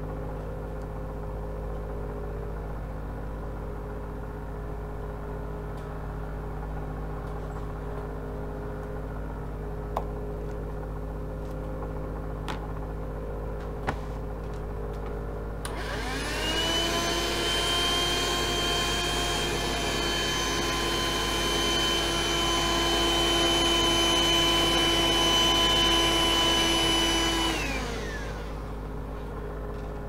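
Dirt Devil Scorpion cordless hand vacuum switched on about halfway through. Its motor whine rises to speed, runs steadily for about twelve seconds while it sucks up crayon and pencil shavings, then winds down as it is switched off.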